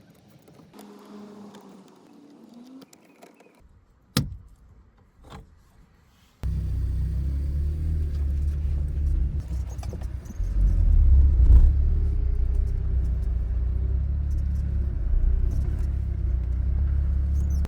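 Two sharp clicks, then a car's steady low rumble that comes in suddenly partway through and swells briefly a few seconds later, as heard from inside a moving car.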